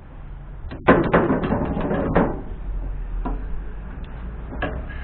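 Handling noise on a truck body: about a second in, a burst of quick clattering clicks and knocks lasting a second or so, then two single knocks, as a rubber windscreen seal and small bottles are handled against the windscreen and cowl panel.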